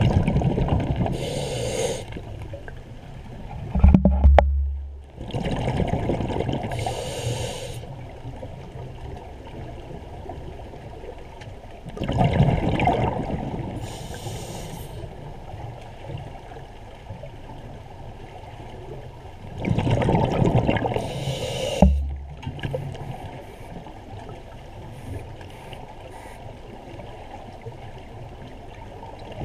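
Scuba diver breathing through a regulator underwater: exhaled air bubbles rush and gurgle about every seven seconds, with a faint hiss of inhaled air between them. Two short dull thumps are heard, one a few seconds in and one past the middle.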